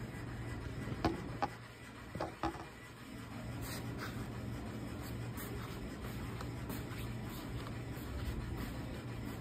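A few knocks as a phone is set down on a tiled floor, then soft, regular footsteps of sandals on the tiles as a person walks away, over a steady low hum.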